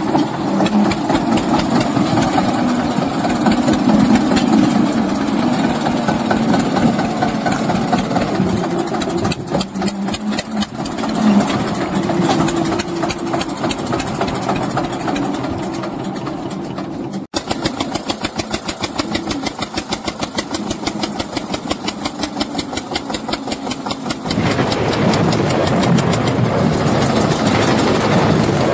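Mini tractor engine running steadily under load. After a brief dropout a little past halfway, it chugs with an even pulse of about three beats a second, then runs smoother near the end.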